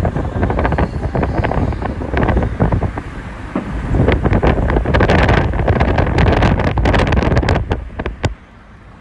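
Wind buffeting the microphone over the low rumble of a moving car, broken by many short sharp crackles, thickest in the second half. The sound drops away briefly near the end.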